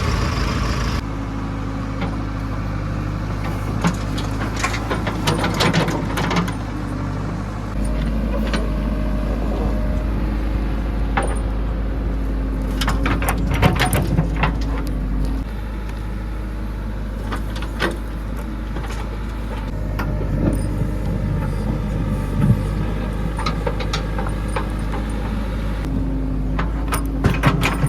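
Diesel engine of a backhoe loader running steadily, stepping up and down in load a few times as it digs and loads mud. Scattered clanks and knocks are heard throughout.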